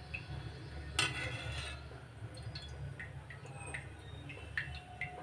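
Hot ghee ticking and popping faintly in an aluminium kadhai as a test pinch of maida fries in it, with one sharper metal clink of the slotted spoon against the pan about a second in, over a low steady hum.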